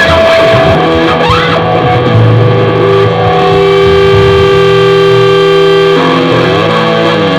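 Punk rock recording with loud, distorted electric guitar playing held notes, with a downward pitch slide about six seconds in.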